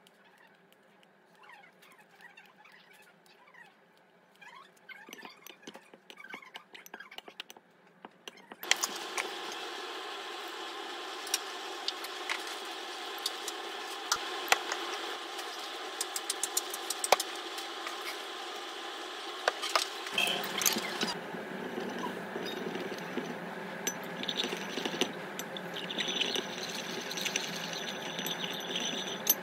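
Faint handling sounds, then an electric stirrer running in a beaker of liquid: a steady mechanical whir with frequent clicks and rattles. It starts suddenly about nine seconds in and deepens about twenty seconds in.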